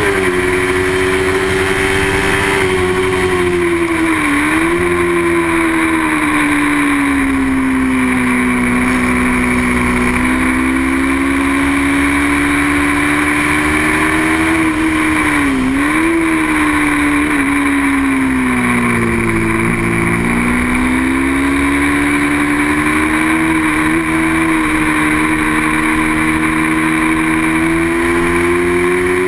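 Small-capacity racing motorcycle engine held high in the revs under race conditions. Its pitch sags briefly about four seconds in, again around fifteen seconds and around twenty seconds, then climbs back, rising near the end.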